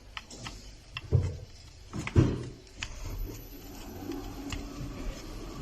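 Plastic heat gun housing parts being handled and fitted: scattered sharp clicks, with two louder knocks about one and two seconds in.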